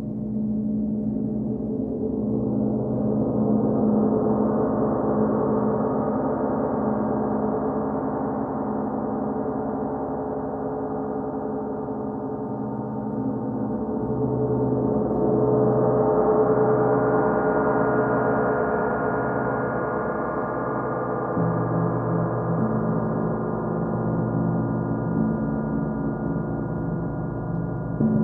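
Large Paiste gongs played continuously with soft mallets: a sustained wash of many overlapping ringing tones that swells to a peak about four seconds in and again around sixteen seconds. A new low note enters about twenty-one seconds in, and another stroke lands right at the end.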